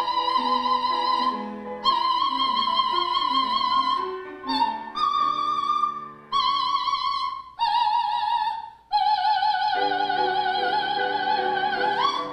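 Soprano singing high operatic notes with wide vibrato over an instrumental accompaniment. She sings a string of held notes broken by short gaps, then holds one long high note for about three seconds near the end.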